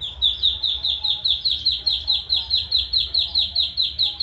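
Duckling peeping steadily: a rapid, even run of short high peeps, each dropping in pitch, about six a second.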